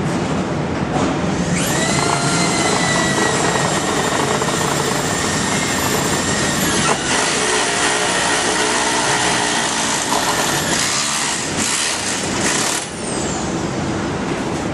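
A small electric motor runs with a steady high whine over loud mechanical noise, the whine setting in about a second and a half in and fading near the end, followed by a few clicks and knocks.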